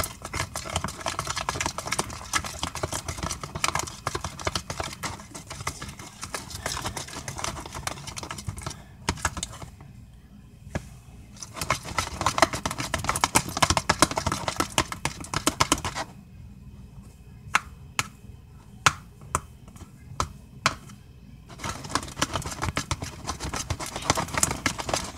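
Glue-and-activator slime, still runny, being stirred in a bowl: rapid wet clicking and squelching. The stirring eases off twice for a few seconds, about nine seconds in and again about sixteen seconds in, leaving only scattered clicks.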